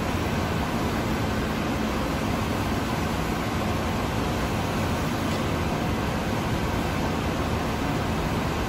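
Steady industrial machinery noise with a low electrical hum underneath, the constant background din of a steel fabrication shop.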